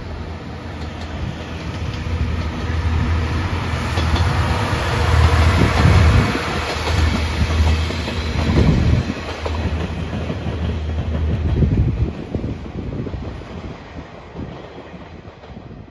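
Passenger train passing close by: a low steady drone from its running gear under a rushing rumble, with the clickety-clack of wheels over rail joints. It is loudest in the middle and fades away over the last few seconds.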